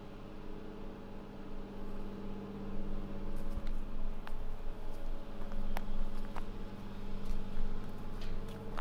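A steady low mechanical hum, like an engine running, with scattered sharp ticks from about three seconds in.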